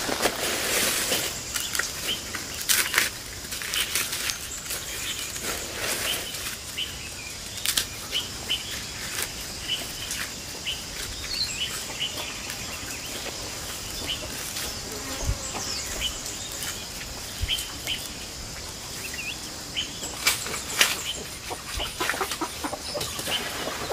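Small birds chirping in many short calls, with rustling and knocks now and then, loudest near the start and again near the end.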